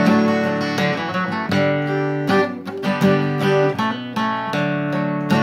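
Acoustic guitar strumming chords: the instrumental break of the song, with no singing.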